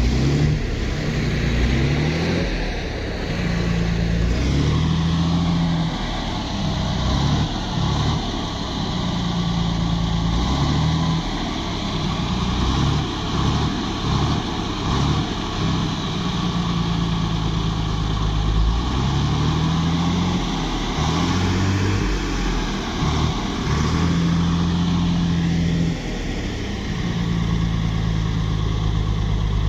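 Truck engine revving up and dropping back again and again as the rig truck, bogged down in soft sand, tries to drive out.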